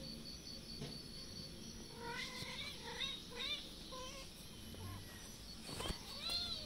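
A kitten meowing: a run of short, high mews around the middle, then one longer meow that rises and falls near the end.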